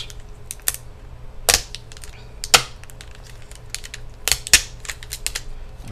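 Sharp, irregular clicks and taps of fingers and fingernails working on the back of a laptop LCD panel, peeling the tape off its video cable connector and unplugging the cable. The loudest clicks come about two and a half and four and a half seconds in, over a low steady hum.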